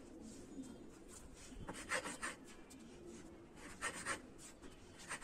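Hands rubbing and crushing multani mitti (fuller's earth) clay into wet paste on a hard surface: soft scratchy rubbing, with two short clusters of quick gritty strokes about two and four seconds in.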